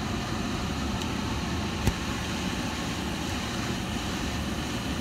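A steady rush of blowing air inside a car cabin, with one sharp click about two seconds in.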